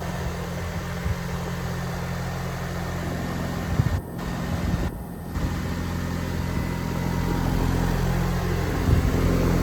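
New 2024 Goodman central air conditioner running in cool mode: its Copeland scroll compressor gives a steady low hum under the even rush of the condenser fan.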